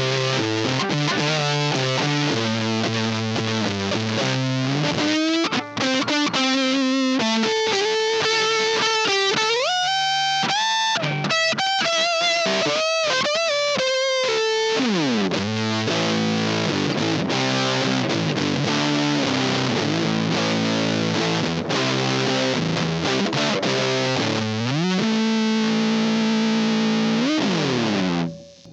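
Electric guitar, an Eastman 335-style guitar with humbuckers, played through an Anvil Audio Fuzz germanium fuzz pedal with its single Go knob fully up. It gives thick, distorted, sustaining chords and lead lines with several string bends and slides, and stops just before the end.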